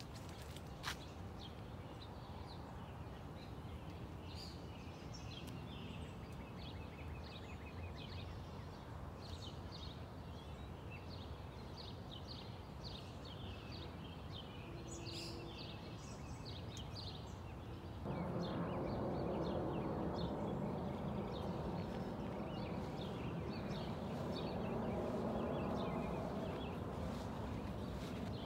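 Outdoor ambience: birds chirping repeatedly over a steady background hiss, with a single click about a second in. About two-thirds of the way through, a louder rushing noise comes in abruptly and carries on.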